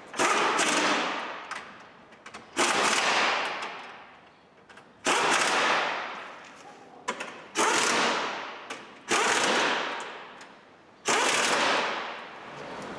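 A hand-held power tool run in six short bursts, each starting sharply with a dense rattle and tailing off over a second or two.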